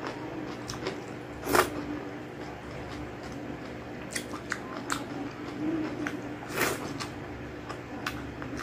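Close-up eating sounds: chewing with wet mouth clicks and smacks while eating spicy balbacua, a gelatinous stewed beef dish, with rice by hand. Scattered sharp clicks over a steady low hum.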